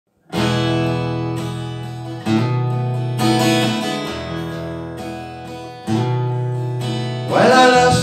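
Acoustic guitar intro: chords strummed and left to ring, a new one every second or two. A man's singing voice comes in near the end.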